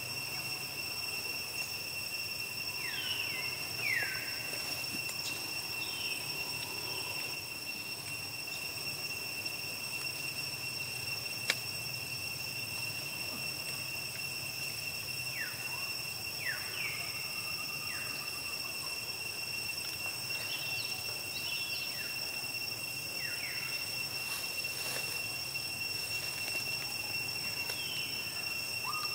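Insects droning steadily on several high pitches, with short falling chirps now and then and a single sharp click about eleven seconds in.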